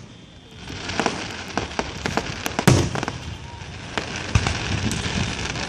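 Fireworks going off: a string of irregular bangs and pops over a crackling hiss, starting about a second in, with the loudest bang about two and a half seconds in.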